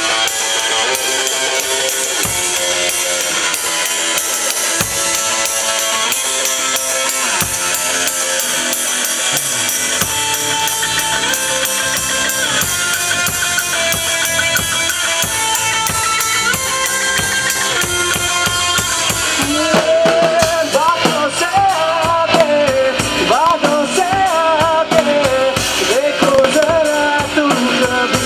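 Live rock band playing: a drum kit with kick, snare and rimshots under held guitar chords and a bright cymbal wash. About two-thirds of the way through, the cymbals drop back and a bending melody line comes to the front.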